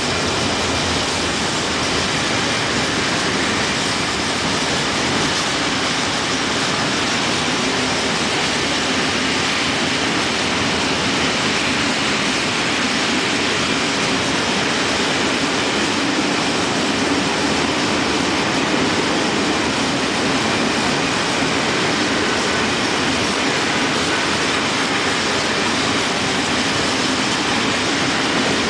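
Long freight train of high-sided open wagons rolling steadily past, a continuous, even noise of steel wheels running on the rails.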